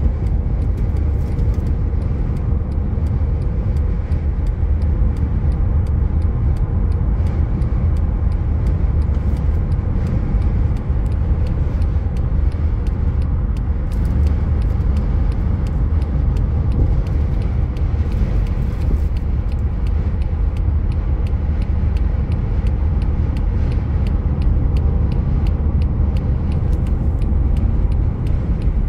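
Steady low rumble of road and wind noise inside a car's cabin while it drives along a highway.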